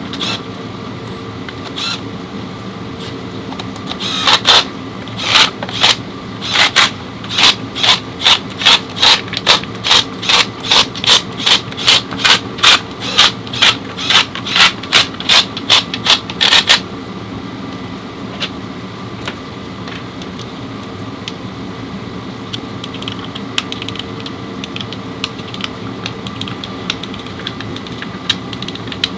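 A quick run of about thirty sharp strikes, roughly two a second, starting about four seconds in and stopping suddenly after about twelve seconds, over a steady mechanical hum. Lighter, faint clicking follows near the end.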